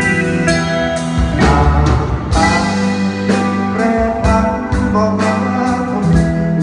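Instrumental passage of a band: guitar over a steady bass line, with no singing.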